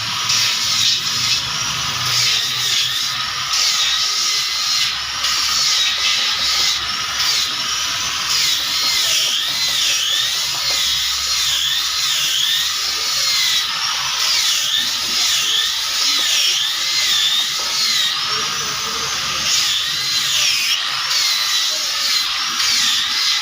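Small electric power tool running steadily, a high whine that wavers up and down in pitch as its load changes while working wood.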